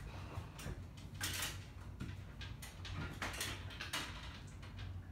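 Scattered rustling and light clattering of things being handled and moved about.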